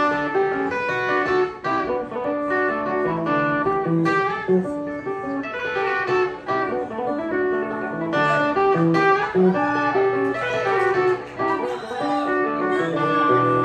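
Solo plugged-in guitar playing an instrumental passage: quick runs of plucked notes ringing over lower bass notes.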